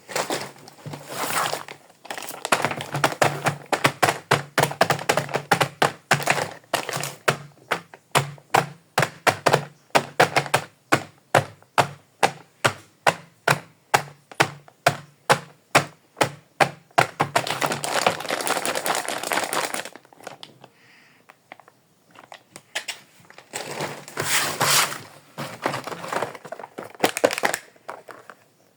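A steady series of light, sharp knocks, two or three a second, running for about fifteen seconds. Then comes a stretch of denser scraping and handling noise, a short pause, and more handling noise near the end.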